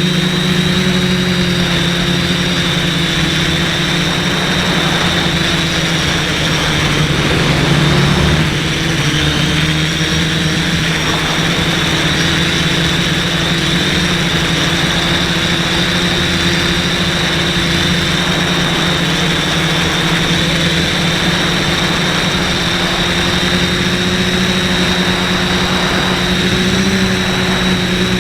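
Quadcopter's brushless motors and propellers running steadily in flight, a continuous drone with a steady high whine, swelling briefly about eight seconds in.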